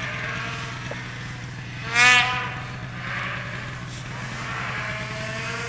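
Snowmobile engines running and revving in deep powder, with the pitch climbing over the last few seconds. About two seconds in there is a single loud, short sound that rises and falls in pitch.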